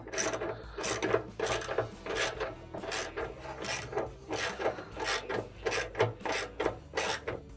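Socket ratchet wrenches clicking in quick, uneven strokes, about three a second, as they tighten the nut on a dryer drum roller shaft.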